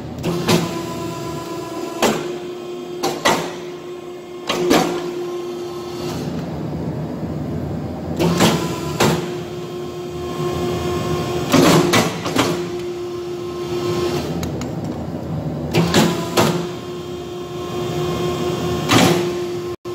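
A powered press runs with a steady hum and comes down on a red-hot steel knife blade about a dozen times at irregular intervals, each stroke a sharp metallic strike, some of them in quick pairs.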